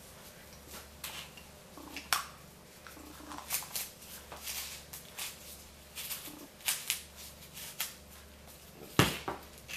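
Dry, papery onion skin crackling and rustling as it is peeled off by gloved fingers and a small knife, in a run of short scratchy crackles. Two sharp clicks stand out, about two seconds in and near the end.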